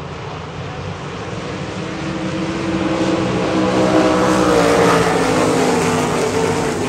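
A pack of winged V8 sprint cars racing on a dirt oval, their engines growing louder as they come near and pass close by, loudest about two-thirds of the way in. The engine pitch drops slightly as they go by.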